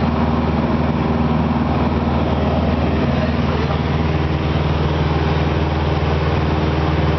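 Cessna 172RG Cutlass II's four-cylinder Lycoming engine and propeller in flight, a steady unchanging drone heard inside the cabin.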